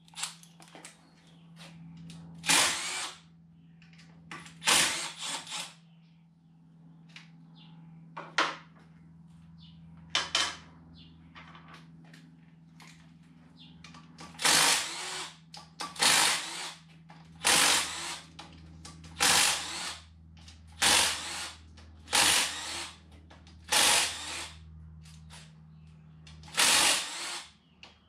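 Power drill-driver running in short bursts, a few scattered at first and then about every second and a half in the second half, with faint clicking and scraping between and a steady low hum underneath.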